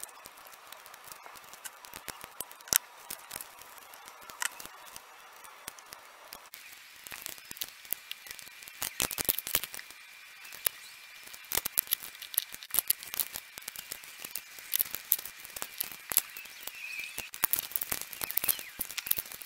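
Masking tape being pulled off the roll and pressed onto a metal vise: crackly peeling and tearing of the tape with small clicks and taps from handling, denser from about a third of the way in.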